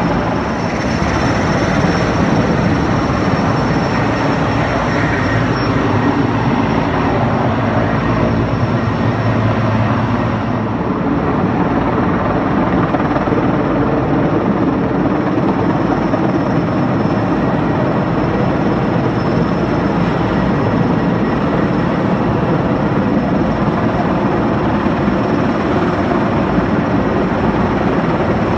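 Sikorsky S-64 Skycrane heavy-lift helicopter flying, a loud steady rotor and engine noise.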